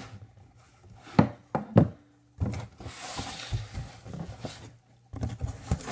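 Cardboard shipping box being handled and opened: two sharp knocks on the cardboard, then a few seconds of rustling and rubbing as hands dig through the packing inside.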